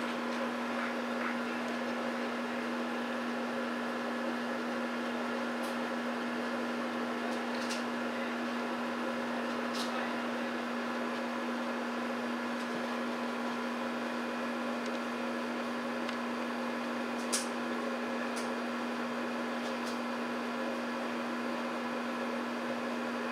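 Steady machine hum with one strong low tone, with a few faint clicks scattered through it, the sharpest about seventeen seconds in.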